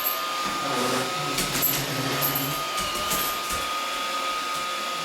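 iRobot Roomba 560 robot vacuum running, a steady motor hum with a thin high whine and a few light clicks.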